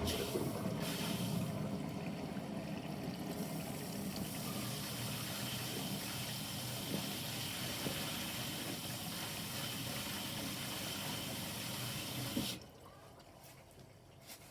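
Bosch washing machine filling with water: a steady rush of water flowing into the drum that cuts off suddenly about three-quarters of the way through, as the inlet valve closes.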